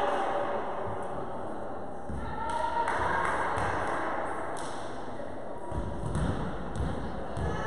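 Scattered dull thuds of volleyball play echoing in a large sports hall: the ball being struck or bouncing and players' feet on the wooden court. A few brief shouts from players come in about two seconds in.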